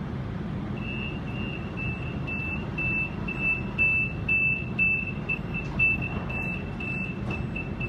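Door-closing warning beeps on a Sydney Millennium (M set) double-deck train: a high beep repeating about twice a second while the doors slide shut, over a steady low rumble from the train.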